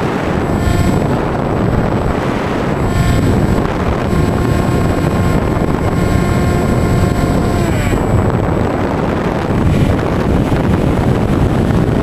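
Wind rushing over the onboard camera of a Bixler 2 electric RC plane in flight, with the whine of its electric motor and propeller coming and going. The whine holds steady for a few seconds in the middle, then falls in pitch and fades about eight seconds in as the throttle comes back.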